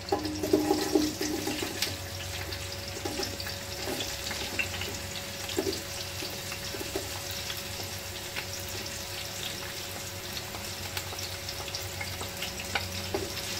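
Sliced onions frying in hot oil with whole spices in a pot: a steady sizzle with faint scattered crackles.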